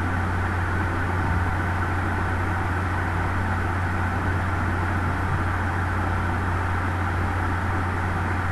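Steady low hum with an even hiss, unchanging throughout: background noise picked up by the narrator's microphone.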